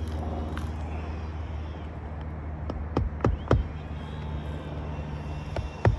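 Roofing nails being driven into asphalt shingles: three quick hammer blows about three seconds in, and another near the end, over a steady low hum.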